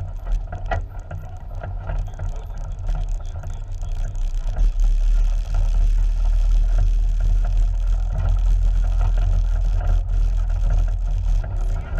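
Side-by-side UTV driving over a rough dirt trail: a steady low engine and drivetrain rumble that grows louder about four to five seconds in.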